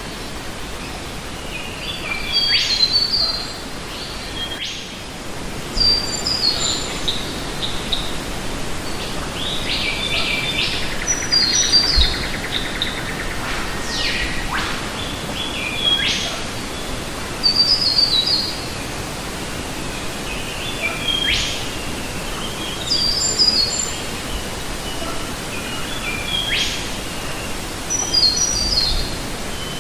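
Forest stream flowing over rocks with a steady hiss, while birds call every few seconds: short descending runs of high notes and quick rising whistles.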